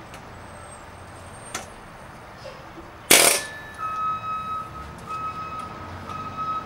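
Pneumatic air hammer with a punch chisel bit hammering on a broken crankshaft sprocket to drive it off the crankshaft. There is one short, very loud burst about three seconds in, then a string of shorter bursts with a steady metallic ringing tone.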